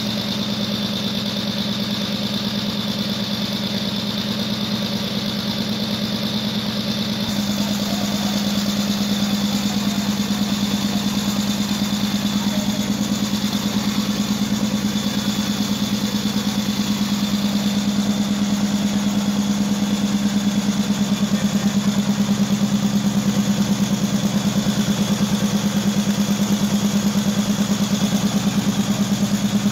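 Large turbocharged multi-cylinder diesel engine running steadily on a stand through an open exhaust pipe with no muffler. About seven seconds in the sound shifts and gets a little louder.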